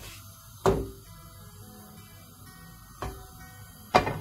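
Solo acoustic guitar background music: a few plucked notes ring out and fade, the loudest near the end.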